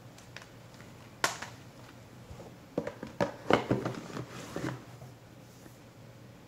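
Plastic Blu-ray cases clacking as they are handled and slid into a cardboard box-set slipcase: a sharp click about a second in, then a run of knocks and scrapes over the next two seconds.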